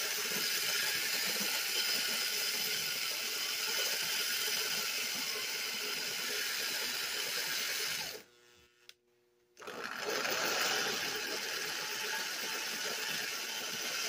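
Lionel toy train locomotive running on three-rail track, its small electric motor and gears whirring steadily. About eight seconds in the sound cuts out for a second and a half, then picks up again.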